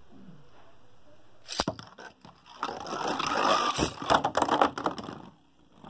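Two 3D-printed Beyblade spinning tops in a plastic Beyblade stadium: a couple of sharp clacks about a second and a half in, then a dense rattling whir of the tops grinding on the stadium floor, broken by sharp clacks as they collide. The noise dies away shortly before the end.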